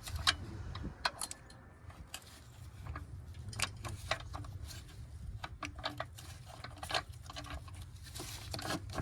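Scattered light clicks and knocks of tools and plastic parts being handled around a car battery and its ECU bracket, over a low steady rumble.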